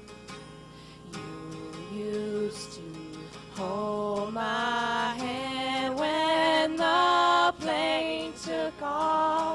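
Acoustic guitar played live with young women singing a slow song. The singing comes in louder about three and a half seconds in, with long held notes that slide between pitches.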